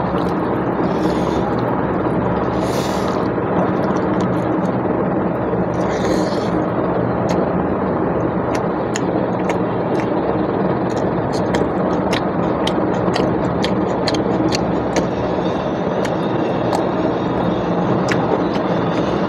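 Steady, even background rumble with no speech, and from about seven seconds in, many small sharp clicks of eating: rice being mixed and chewed by mouth.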